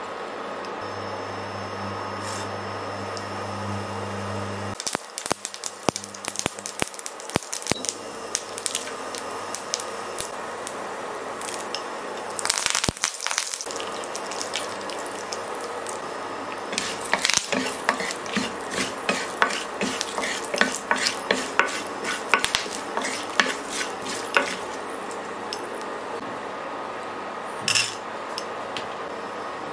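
Hot oil in a nonstick pan sizzling as a South Indian tempering of seeds, curry leaves and dried red chillies fries, with bursts of sharp crackles and pops that come thick about twelve seconds in and again through the second half.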